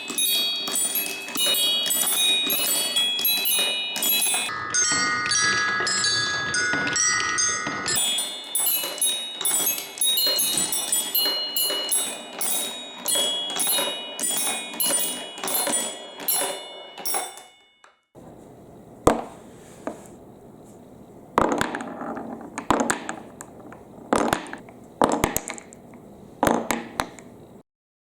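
Many marbles clattering down a wooden block marble run, with rapid clicks and ringing chime-like notes for most of the first two-thirds. After a short pause, sparser single clacks of marbles knocking against the blocks follow.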